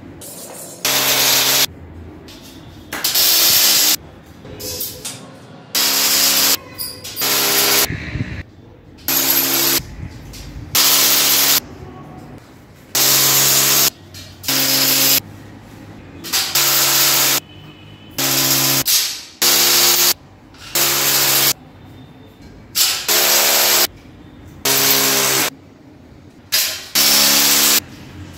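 Corded electric drill run in about fifteen short bursts, roughly one every two seconds, each a steady motor whine under a second long, as metal angle profiles are fastened to the wall.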